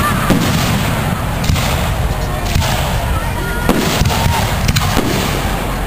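Aerial firework shells bursting overhead: a run of sharp bangs about a second apart over a steady low rumble.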